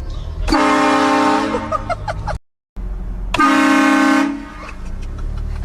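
Air horn blasted twice: a loud blast of about two seconds that cuts off suddenly, then a shorter blast of about a second, over a low steady rumble.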